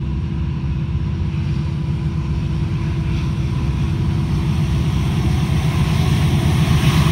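Two diesel locomotives leading an approaching intermodal freight train: a low, steady engine rumble that slowly grows louder as the train nears.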